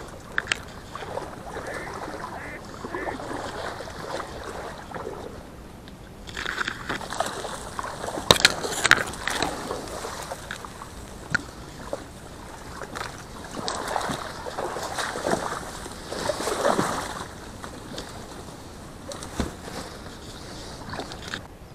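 Reed stems rustling and water sloshing as someone moves through a reed bed in shallow water, with sharp clicks now and then.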